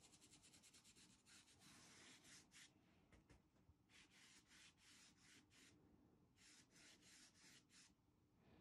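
Faint, quick strokes of a flat paintbrush working craft paint into a fabric apron: runs of rapid back-and-forth brushing, about ten strokes a second, broken by short pauses.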